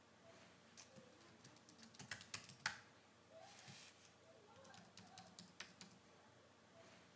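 Typing on a computer keyboard: scattered single keystrokes, with a quick run of key clicks about two seconds in and another about five seconds in.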